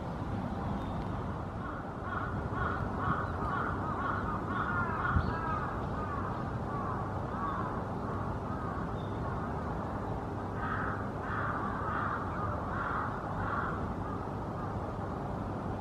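Birds calling in two bouts of short, quickly repeated notes, one starting about two seconds in and one about ten seconds in, over a steady low background rumble.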